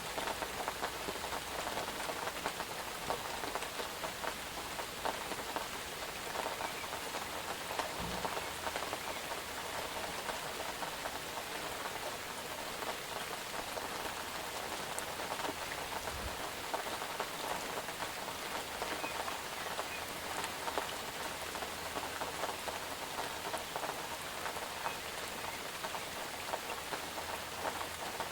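Steady rainfall, a dense patter of raindrops hitting a surface.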